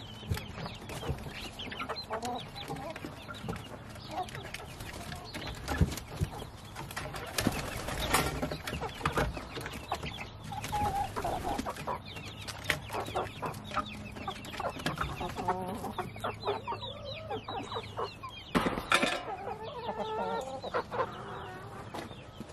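A flock of backyard chickens clucking and chattering, many short calls overlapping throughout, with a few scattered scuffs and knocks among them.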